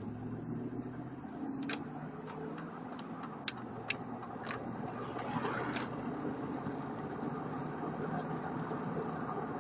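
2003 Chevy Tahoe running, a steady low engine hum that swells slightly at first, with a handful of sharp clicks in the first few seconds, two of them standing out loudly.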